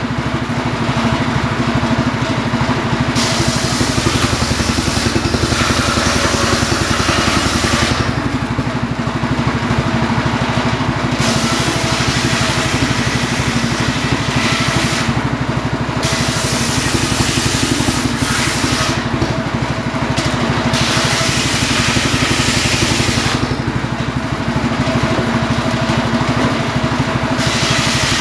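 Homemade table circular saw ripping firewood logs lengthwise, its drive engine running steadily throughout. Four or five cuts, each a few seconds of loud hissing blade noise through the wood, with the engine and free-spinning blade heard alone in between.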